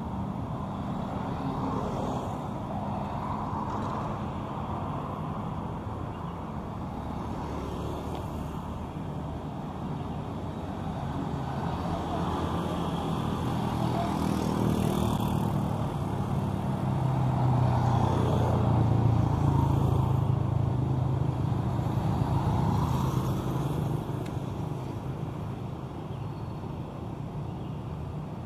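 Road traffic on a city street: motor vehicles passing one after another in a continuous engine rumble that swells and fades with each pass. The loudest pass comes about two-thirds of the way through.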